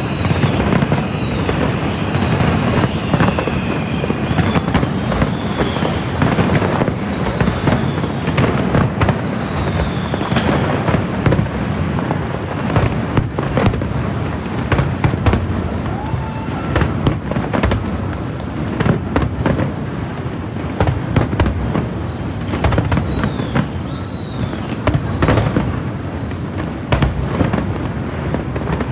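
Fireworks display going off in rapid succession: continuous crackling and popping with frequent sharp bangs.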